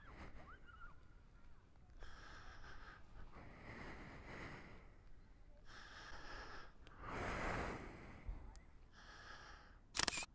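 Slow, heavy breathing close to the microphone, about five breaths each a second or two long, then a brief loud rustle or knock near the end.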